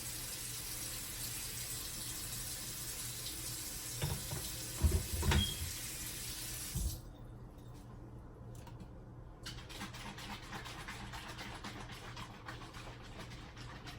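Water running steadily, as from a kitchen tap, with a few knocks about four to seven seconds in; the water cuts off sharply about seven seconds in, followed by faint light ticks.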